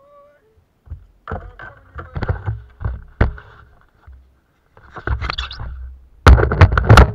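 Handling noise on a plastic kayak: irregular knocks, scrapes and rubbing as the camera's PVC pole mount is gripped and turned. The loudest burst of rubbing comes near the end.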